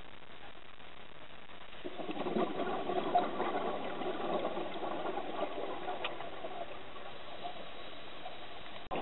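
A scuba diver's regulator exhaust: a burst of exhaled bubbles starting about two seconds in as a rough, crackling rattle, then easing off, over a steady hiss.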